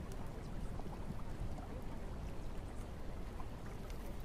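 Steady rain falling: a constant even hiss with scattered drops ticking through it.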